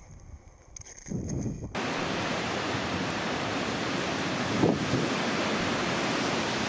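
Strong wind rushing in a steady, even hiss, with gusts thumping on the microphone, cutting in abruptly about two seconds in after a quieter stretch.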